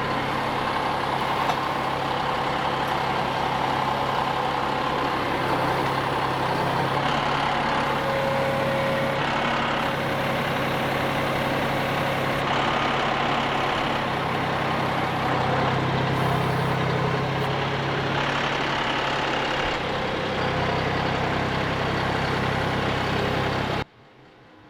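John Deere tractor engine running steadily, with a constant low hum. The sound cuts off abruptly near the end.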